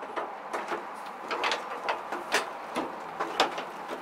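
Chrome-plated plastic grille of a 2007 Toyota Tundra creaking and clicking against its retaining clips as it is tugged and wiggled by hand, in short irregular bursts about two or three a second.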